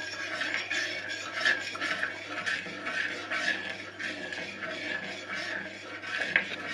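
Sugar being stirred into warm water in a bowl, a utensil scraping against the bowl in repeated strokes as the sugar dissolves.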